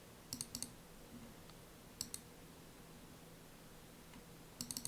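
Faint, sparse clicks of a computer keyboard or mouse in use: a quick run of about four near the start, two about two seconds in, and another quick run near the end.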